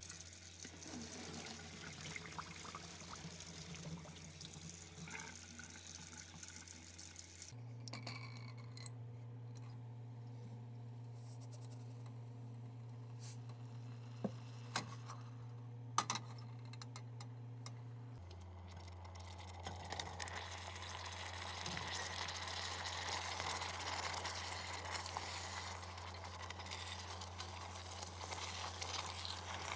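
Kitchen tap running into a steel sink while boiled ravioli are drained into a plastic colander. A few sharp clinks follow, then a pot of tomato sauce sizzling on the heat.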